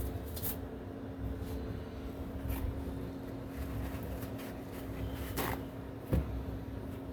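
Workshop handling noises: a few soft rustles and clicks over a steady low hum, with a single sharp knock about six seconds in.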